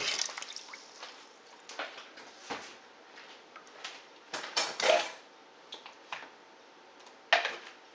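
Kitchen utensils and dishes being handled: a handful of short clinks and knocks spread out over several seconds, with quiet between them.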